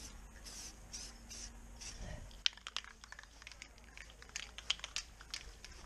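Aerosol spray-paint can hissing in short bursts, then a run of light, irregular clicks.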